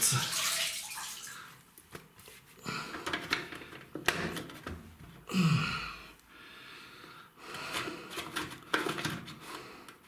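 Water trickling and splashing from the open drain-filter housing of a Hotpoint-Ariston washing machine, with short plastic clicks and knocks as the loosened filter cap is wiggled and pulled at.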